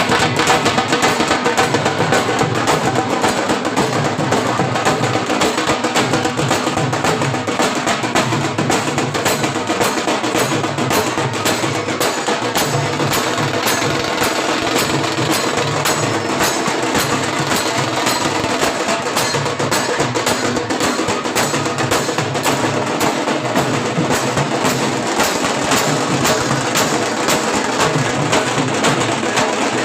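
Loud music with dense, rapid percussion, running without a break.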